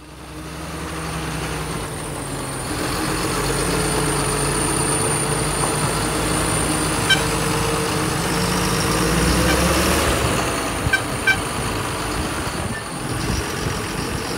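John Deere 7730 tractor's six-cylinder diesel engine running steadily close by, fading in over the first couple of seconds, with a slight waver in pitch about ten seconds in. A few short sharp clicks sound about seven seconds in and twice about eleven seconds in.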